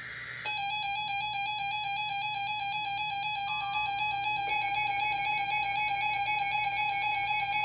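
Emergency Alert System attention signal: a steady, harsh two-tone alarm (853 and 960 Hz) played over the radio. It starts about half a second in after a brief higher buzz and holds unbroken, announcing an emergency alert, here a severe thunderstorm warning.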